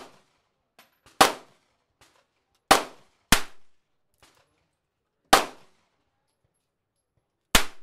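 Firearm shots: five single sharp cracks at uneven intervals, about a second, a second and a half and a half second apart, then a two-second gap and another two-second gap. Each shot has a short fading tail.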